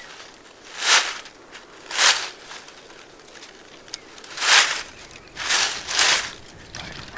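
Dry leaf litter crunching five times at uneven intervals, like slow, careful footsteps.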